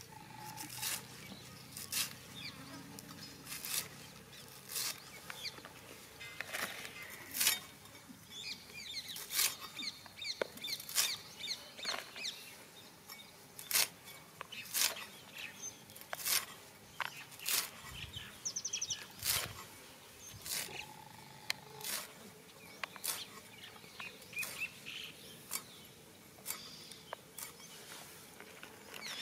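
Small knife cutting through fresh coriander stalks in the hand, a series of sharp, irregular clicks about once a second, with birds chirping faintly in the background.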